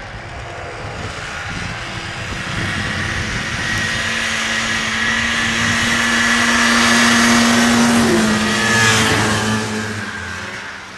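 Two snowmobile engines running at speed, growing louder as the sleds approach, then passing close with a drop in engine pitch about eight seconds in and fading away.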